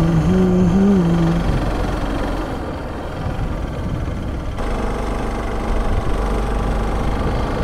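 Motorcycle engine running on the move, with steady road and wind noise; a short tone that steps in pitch sounds during the first second and a half, and the engine note changes about four and a half seconds in.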